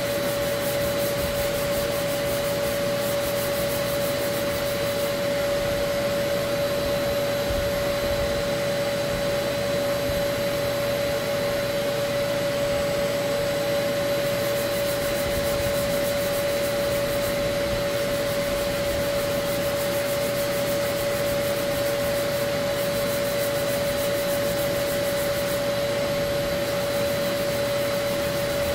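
A vacuum motor runs steadily, a constant whining drone over a hiss. A fainter rubbing scratch from hand-sanding body filler comes and goes over it.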